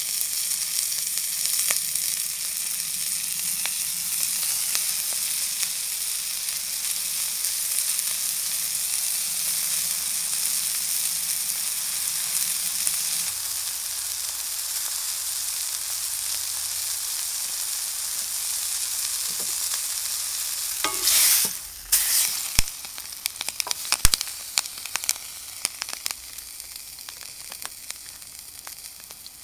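Beef steak sizzling as it sears in an enamelled cast-iron pan, a steady fat-and-juice hiss. About two-thirds of the way in there is a brief, much louder burst of sizzling, and after it the sizzle is quieter, with scattered sharp pops of spitting fat.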